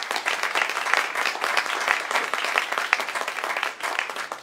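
Audience applauding: many hands clapping at once, beginning to thin out near the end.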